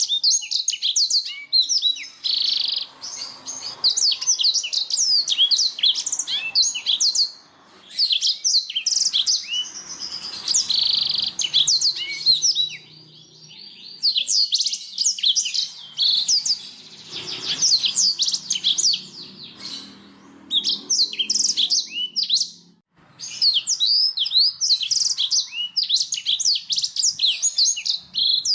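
Domestic canary singing: long bursts of rapid chirps and trills with short pauses between them.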